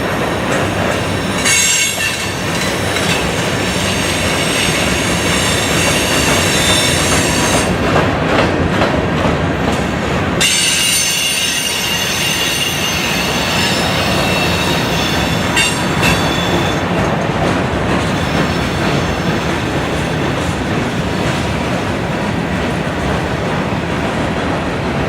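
Empty grain train's covered hopper cars rolling through a curve: steady rumble and clatter of wheels on rail, with high-pitched wheel flange squeal that comes and goes, strongest for the first several seconds and again from about ten to seventeen seconds in.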